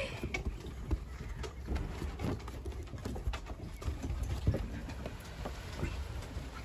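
Puppies' paws and claws tapping and pattering irregularly on wooden deck boards, over a low steady rumble.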